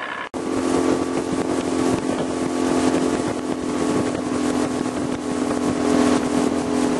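Boat's outboard motor running steadily as the boat travels across the water, a steady hum under wind and water noise, after a brief dropout near the start.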